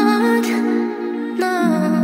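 Sped-up synth-pop outro without lyrics: sustained synth chords under a melody line that slides between notes, with the bass dropping to a lower note about one and a half seconds in.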